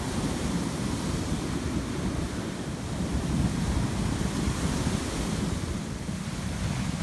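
Heavy surf breaking and washing up the beach, a steady rushing roar, with wind buffeting the microphone.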